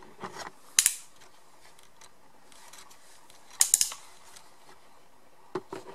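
Handling noise: a few brief, crisp clicks and rustles, one short cluster about a second in and a sharper run of three or four near four seconds in, with a quiet room between.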